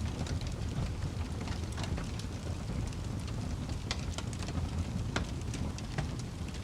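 Fire burning, with a steady low rumble and irregular sharp crackles and pops throughout.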